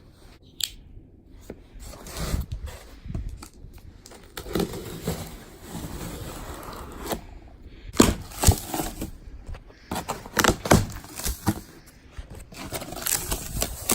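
Cardboard box being opened and its packaging handled: scraping, rustling and crackling with scattered clicks, and two sharp knocks about eight seconds in.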